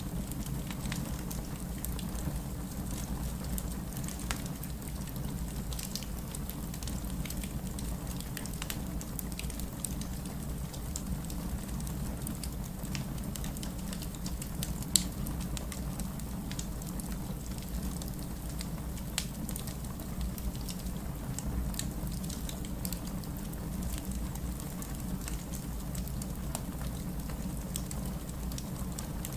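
Wood fire crackling in a fireplace: scattered sharp pops and ticks over a steady low rumble, with one louder pop about halfway through.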